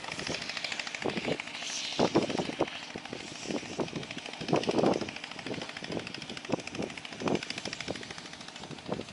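Small waves lapping and slapping against the hull of a small fishing boat in irregular splashes, over a steady high hiss.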